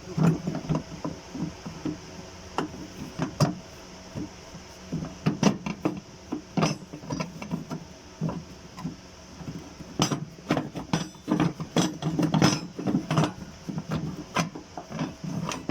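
Irregular metallic clinks and taps from tools working the fuel pump's lock ring on the fuel tank, with a busier run of knocks about ten seconds in.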